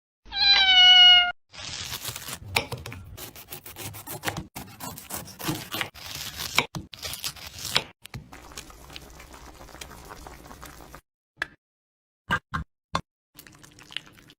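A cat meows once, loudly, its pitch falling then holding. It is followed by a long run of clicks, knocks and rustling, then a few separate clicks near the end.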